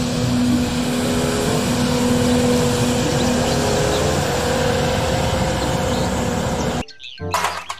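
Street sweeper truck running as it sweeps the pavement: a steady engine and fan hum under a constant rush of broom and road noise. About a second before the end it cuts off sharply and a whoosh and children's music begin.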